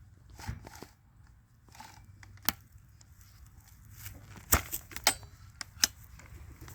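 Hands working a stuck stick out of a stopped Husqvarna 555 chainsaw's chain: a few sharp clicks and knocks with light rustling, the loudest about halfway through.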